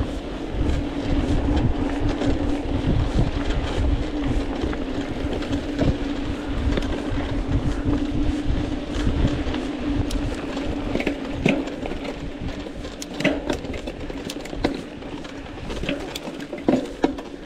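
Mountain bike ridden over a dirt trail: a steady rumble of tyres and wind on the microphone with a constant hum for most of the stretch. From about two-thirds of the way in, sharp clicks and rattles from the bike come more often.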